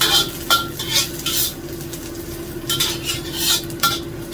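Metal spatula scraping and turning scrambled eggs in a black wok, with irregular scrapes about every half second over the sizzle of the eggs frying. The eggs are at the end of cooking, just set.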